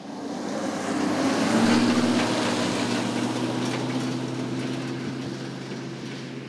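Pickup truck driving past on a gravel road and moving away: a steady engine hum with tyres crunching on the gravel, loudest about a second and a half in, then slowly fading.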